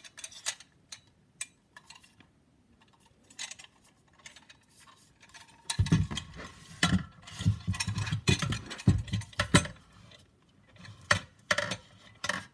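Clicks, light metal clinks and knocks from a stainless-steel exhaust tip with a carbon-fibre sleeve being handled, with a louder, denser run of knocking and rattling with low thumps between about six and ten seconds in as its hinged angle section is moved.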